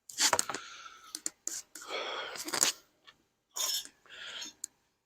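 Wooden beehive boxes being pried apart and handled: short bursts of scraping and creaking with sharp clicks.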